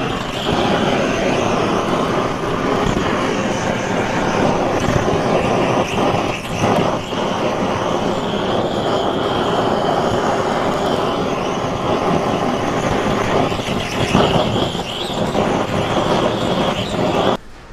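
Handheld gas blowtorch flame roaring steadily as it sears the skin of a boiled pig's head, cutting off suddenly near the end.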